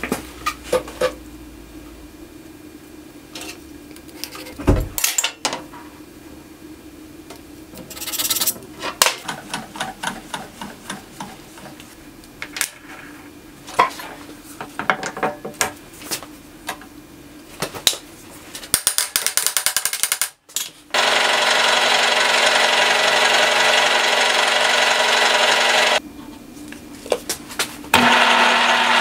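Metal parts and tools clinking and knocking as a steel block is set up in a vise. Then a drill press bores into the thick steel block, a loud, steady cutting noise that starts about three-quarters of the way in, stops briefly, and starts again near the end.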